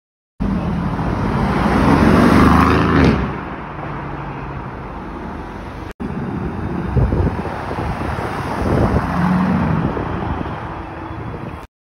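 Aston Martin Vantage's twin-turbo V8 revving, climbing to a peak and dropping back. After a cut, the car pulls away along a street, its engine swelling twice more as it accelerates.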